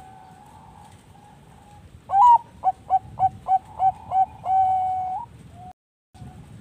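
Perkutut bangkok (a zebra dove) singing: a loud opening note, then about seven short coos in quick succession, ending in one long held note. Other doves coo faintly behind it.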